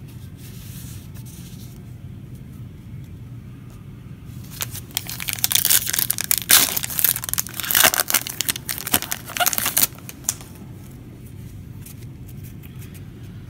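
Foil wrapper of a Panini Prizm football card pack being torn open and crinkled: a run of sharp rustles starting about four seconds in and stopping about ten seconds in.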